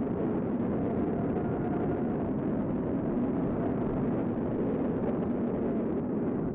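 Tornado wind, a loud steady rushing noise, heavy in the low and middle range, that never lets up.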